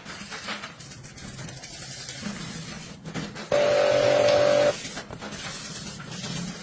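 Pressure washer running for just over a second about three and a half seconds in, a steady whine with spray hiss, then stopping suddenly, over a low steady hum.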